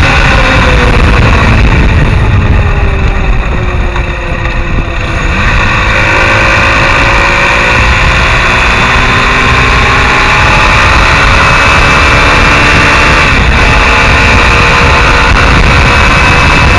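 Mondial SMX enduro motorcycle engine at road speed under heavy wind noise on the microphone. The engine note falls as the bike slows over the first few seconds, then rises again as it accelerates back up and holds steady.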